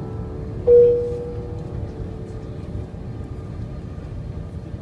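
Low, steady rumble of an Airbus A330-300 airliner's cabin during its takeoff roll. A single piano note from the soundtrack music is struck about a second in and slowly fades.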